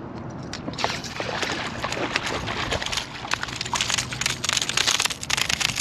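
Water splashing and crackling in quick irregular bursts from about a second in, as a small hooked speckled trout thrashes at the surface while being landed.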